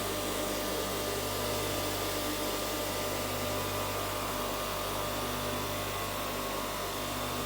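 Draper 05097 bench grinder, 550 W with 200 mm wheels, running steadily at full speed with no load: an even motor hum with several steady tones.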